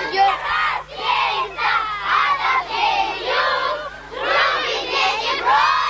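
A group of children chanting or shouting a squad chant in unison, in short rhythmic phrases about a second long.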